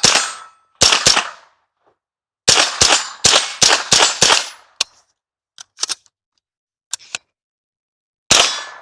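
A .22LR AR-15 rifle firing a fast string of about nine sharp shots, some coming in close pairs, followed by a few fainter snaps. It is doubling: the trigger pins have walked in and made it fire twice, like a binary trigger.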